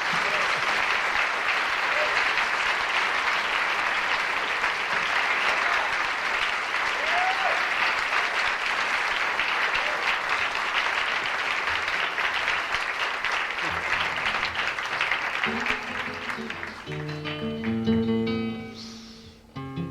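Audience applauding, with a short cheer about seven seconds in. After about fifteen seconds the applause dies away and a solo acoustic guitar begins picking the next song.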